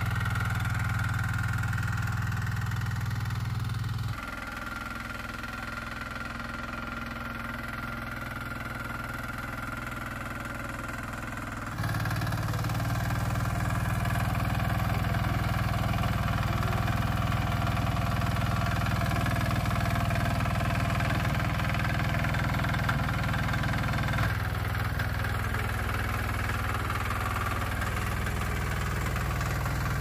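Small farm tractor engine running steadily under work, as when harrowing a field. The sound drops abruptly about four seconds in and comes back up louder after about eight seconds.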